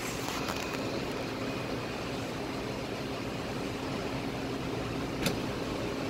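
Steady city background noise from a high floor: a constant hum of traffic and machinery, with one sharp click about five seconds in.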